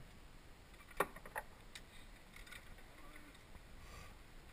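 Faint steady background with two sharp clicks about a second in, less than half a second apart.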